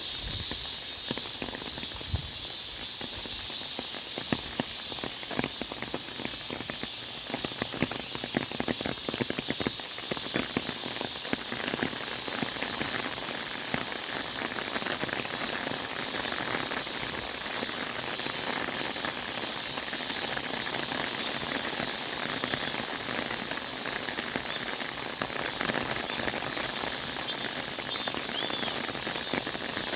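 Cicadas chorusing: a continuous, steady, very high-pitched buzzing hiss. A few light ticks are scattered through the first half.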